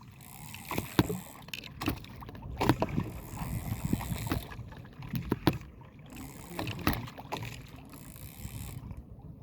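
Water sloshing and splashing, with irregular sharp knocks and clicks.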